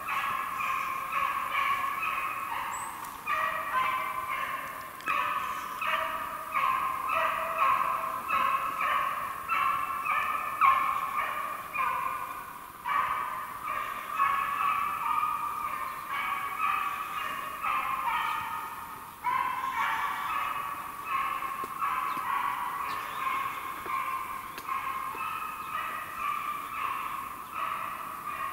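Beagle baying in a steady chain of cries, two or three a second with a few short breaks: a hound giving tongue while it drives a roe deer on the scent.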